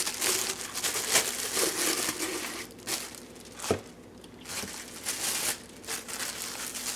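Plastic packaging crinkling and rustling as blender parts are unwrapped and handled, loudest in the first few seconds, with a single sharp click partway through.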